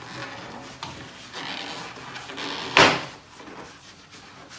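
A plastic wheel-well fender liner being worked loose and pulled away from the front wheel arch: rustling and scraping plastic, with one loud sharp knock a little past halfway.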